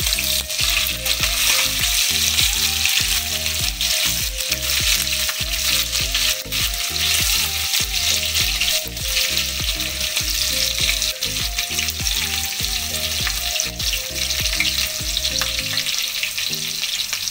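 Sliced onions, cumin and chopped green chillies sizzling steadily in hot oil in a kadai, stirred and scraped with a silicone spatula: the tempering stage, with the onions already golden brown.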